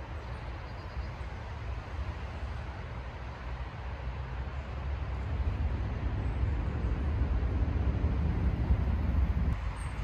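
Low, steady outdoor rumble that grows louder through the second half and eases just before the end.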